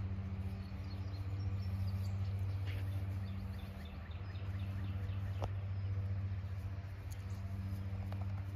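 A steady low machine hum, with a bird calling in a quick run of short high chirps for a few seconds and a few faint clicks.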